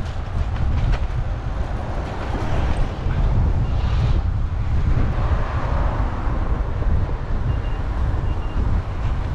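Wind rushing over the microphone with rolling road noise while riding a bicycle, a steady low rumble and hiss.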